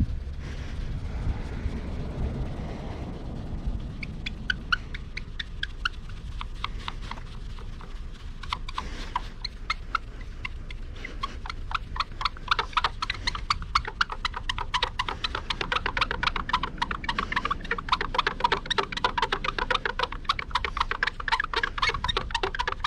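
Cloth and fingertips squeaking on glossy car paint while a shallow scratch on the bonnet is hand-polished with 9800-grit liquid compound: fast, rhythmic squeaks with each rubbing stroke, starting a few seconds in and getting denser and louder about halfway through.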